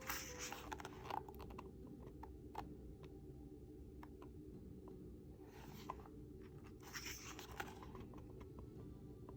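Pages of a photobook being turned: paper rustling and sliding in three short bursts, at the start, about five and a half seconds in and about seven seconds in, with small clicks of the pages between.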